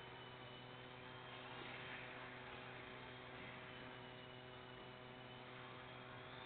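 Faint steady electrical hum, with the thin high whine of a small indoor RC model plane's electric motor dipping and rising in pitch.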